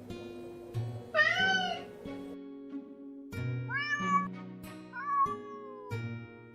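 A domestic cat meowing three times over background music: a loud meow rising and falling in pitch about a second in, then two shorter meows near the middle and towards the end, the last one falling in pitch.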